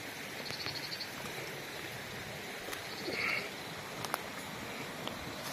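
Forest background by a small pool: a steady low hiss with two short, rapid pulsing calls from a small animal, a brief louder call about three seconds in, and a few faint clicks.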